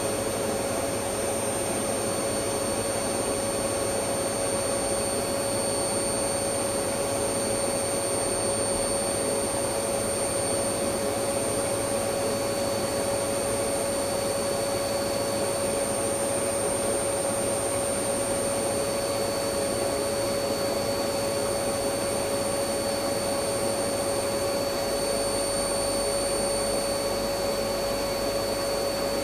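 Electric vacuum cleaner running steadily with an unchanging whine.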